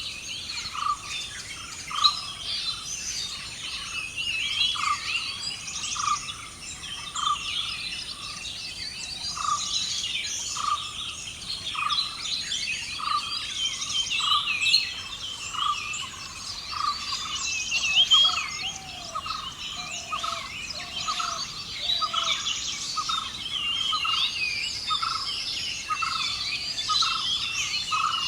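Forest bird chorus: many overlapping high chirps and twitters, with one bird repeating a single short note about once a second, over a steady high insect hiss.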